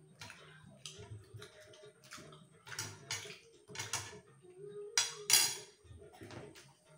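Spoon and ceramic plates clinking at a dining table: scattered clinks, with the loudest clatter a little after halfway.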